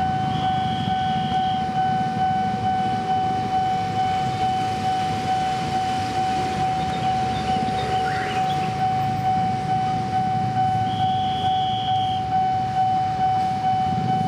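Railway level-crossing warning alarm sounding: one steady tone that pulses about one and a half times a second, with two brief higher tones near the start and again near the end, over a low rumble of idling traffic and the approaching train.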